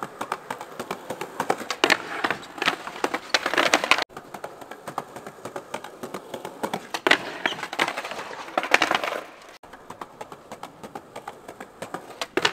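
Skateboard wheels rolling over concrete paving slabs, clicking at each joint, with a few loud sharp cracks from the board. The rolling swells and breaks off abruptly twice.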